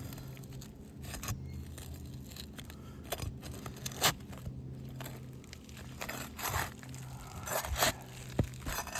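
Asphalt roof shingle being pried up from its sealant strip with a crowbar: irregular scraping, crunching and tearing, with a sharp click about four seconds in. The shingle is already delaminating as it comes unsealed. A steady low hum runs underneath.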